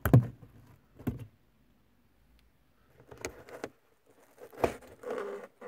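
Clicks and snaps of hard plastic as the lens cover of a car's ceiling light is unclipped and handled: single sharp clicks near the start and about a second in, a small cluster around three seconds, a louder snap just before five seconds, then a brief scrape.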